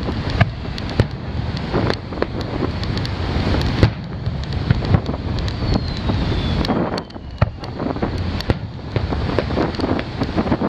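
Fireworks going off: a string of sharp bangs and cracks from shells launching and bursting, with a faint falling whistle about six seconds in. Under it runs a steady rush of wind on the microphone and surf.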